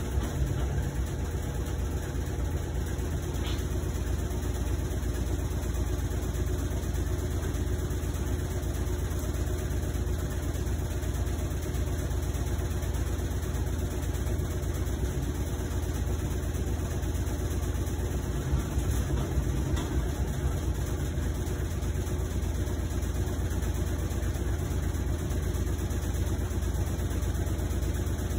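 Whirlpool WTW5010LW top-loading washing machine running, a steady low rumble that does not let up. The owner finds the noise excessive, but Whirlpool's technician says it is normal for this machine.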